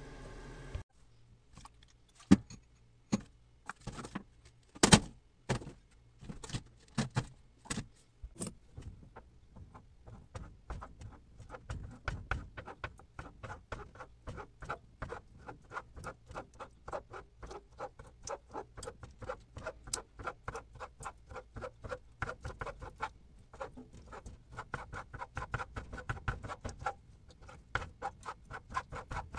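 A metal spoon tearing a block of konjac into small pieces on a cutting board: a steady run of small clicks and taps, about three a second, as the spoon edge strikes the board. There are a few louder, separate knocks in the first several seconds.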